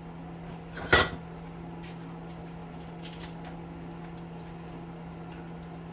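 A sharp metal clank about a second in, then a short metallic scrape around three seconds in, over a steady low hum: tools and metal parts being handled while taking apart a hedge trimmer's electric motor.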